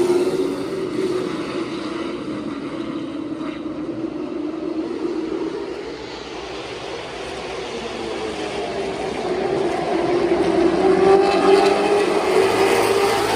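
Late model stock cars running on a short oval track. The engine sound fades to its lowest about halfway through as the cars move away, then swells again and is loudest near the end as they come back around.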